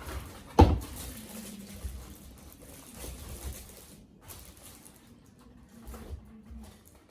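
A single sharp knock about half a second in, as if something is set down on a hard surface, followed by faint rustling and handling noises.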